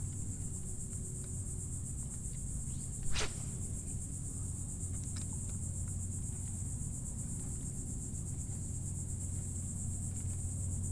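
Steady high-pitched buzzing of insects, over a low steady hum, with a single short sharp sound about three seconds in.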